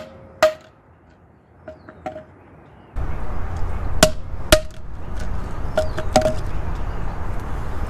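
Google Home Mini smart speaker, a plastic body with a rubber base, dropped about a foot and a half onto concrete: a sharp knock on impact, then a few lighter knocks as it bounces and settles. About three seconds in, a steady low rumble starts and a second set of knocks and bounces follows.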